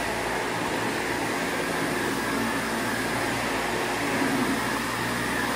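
Windsor Versamatic commercial upright vacuum cleaner running steadily, a continuous rushing hum with a faint high whine.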